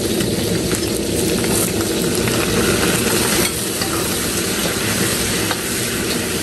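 Pork ribs sizzling in hot oil in a steel wok as they are stir-fried with a metal ladle, a steady frying noise over a low rumble.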